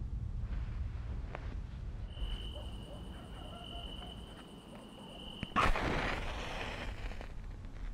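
A match struck on a matchbox about five and a half seconds in: a sudden scrape, then a noisy hiss as it flares for about a second and a half. Before it, a low rumble fades and a thin steady high tone holds for a few seconds.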